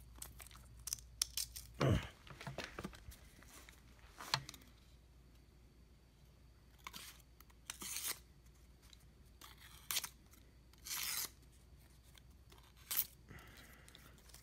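Freshly sharpened cheap pocketknife blade slicing through thin receipt paper held in the hand: a string of short, irregular cutting and tearing strokes during a sharpness test. A louder handling bump comes about two seconds in.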